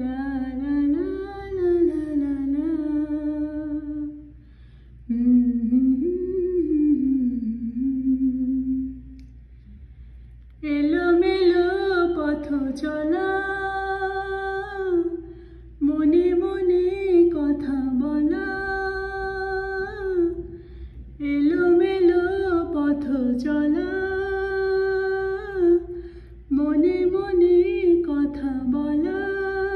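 Unaccompanied voice humming a slow Bengali song melody in six phrases of about four to five seconds each, with short pauses for breath between them.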